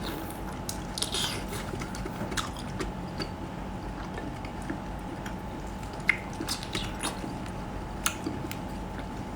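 Close-up eating of sea cucumber: wet clicks, smacks and chewing sounds at uneven intervals, the sharpest about a second in and again around six seconds in, over a faint steady electrical hum.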